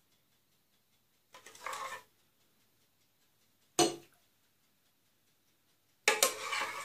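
Metal ladle clinking and scraping against a steel pot and glass bowls while scooping and pouring a thick milk mixture, in three short bursts: a scrape, a sharp clink about four seconds in, and the loudest run of clinks near the end.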